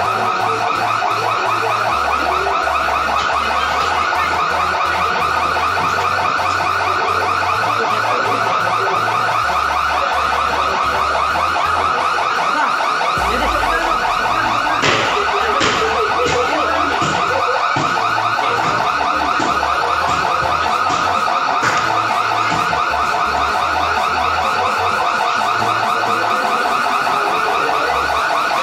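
Electronic security alarm sounding continuously at a steady loud level, a fast-warbling siren tone, raised by an armed robbery at a gold shop. Two brief knocks cut through it, about halfway and about three quarters of the way in.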